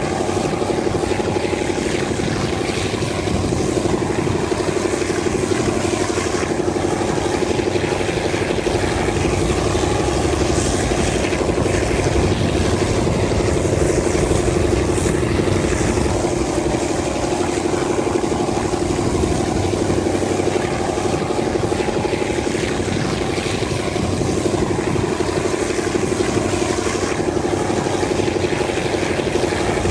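TCDD DE 24000 diesel-electric locomotive hauling the train, heard from a carriage window further back: a steady engine drone with a constant hum, over the rumble of the carriages running on the track.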